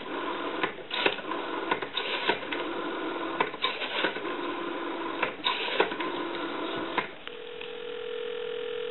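Western Electric 500 rotary dial being wound and let go digit after digit, each return a whirring run of clicks over the line's tone. About seven seconds in the dialing stops and a steady ringing tone sounds on the line for about two seconds as the call goes through.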